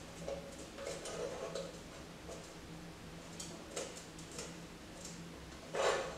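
Small clicks and rustles of hands handling wires and the connections of a halogen bulb on a sheet-metal box, with a louder handling noise near the end.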